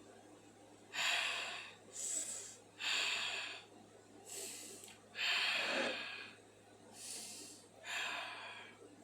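A person breathing heavily, about seven loud, noisy breaths in and out over several seconds, from a man who has the hiccups.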